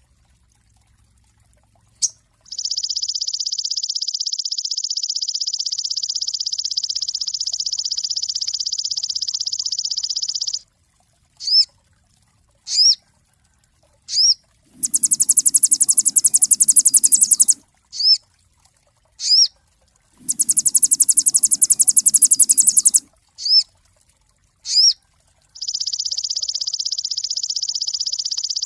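A sogon bird calling: a long, dense, buzzing rattle from about two seconds in to about ten seconds, then a run of short rising whistled notes broken by two louder, higher-pitched rattling bursts, and another long rattle starting near the end.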